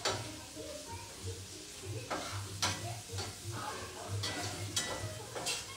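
Trumpet mushrooms sizzling in a frying pan while they are stirred, with a utensil knocking and scraping against the pan a few times in the second half.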